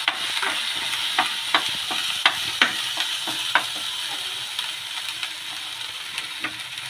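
Ground ginger sizzling as it fries in hot mustard oil, while being stirred: a stirring utensil clicks and scrapes against the pan several times in the first half, and then the steady sizzle carries on alone.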